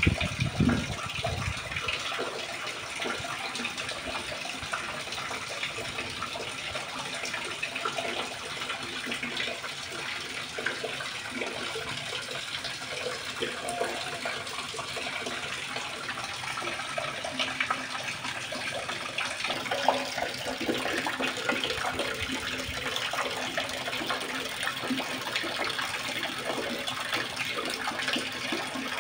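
Water pouring and splashing steadily into a concrete fish pond during a water change, with a low rumble for the first two seconds.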